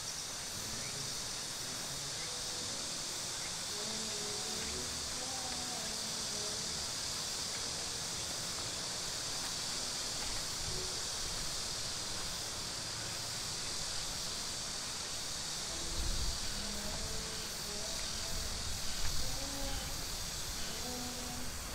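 Steady high-pitched chirring of an insect chorus, with faint distant voices underneath and a few low rumbles near the end.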